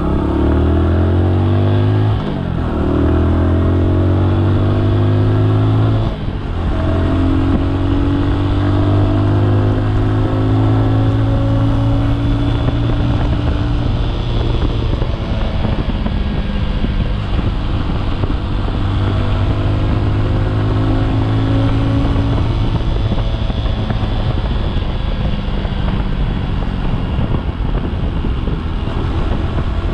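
Bajaj Boxer's single-cylinder four-stroke engine accelerating up through the gears, its pitch rising in each gear with brief dips at the shifts about two and six seconds in, then running at a steady cruising pitch.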